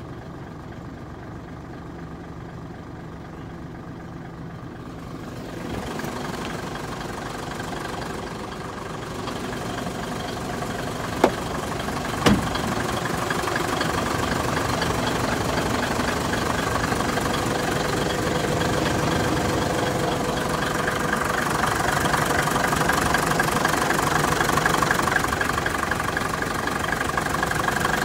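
Mitsubishi Fuso Super Great truck's 6M70 inline-six diesel engine idling steadily, growing gradually louder. Two short sharp clicks sound about eleven and twelve seconds in.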